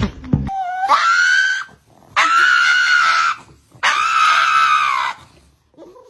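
Three long, high-pitched screams, each lasting about a second, the first rising in pitch as it starts. A few beats of music end just before the first scream.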